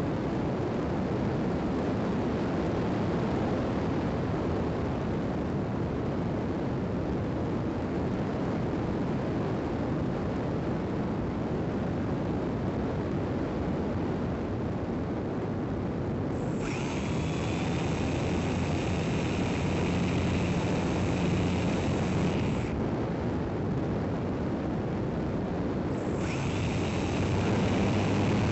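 Electric motor glider (EasyGlider) in flight, heard from its onboard camera: a steady rushing noise of air, with the motor's high whine coming in about 16 seconds in for some six seconds and again near the end.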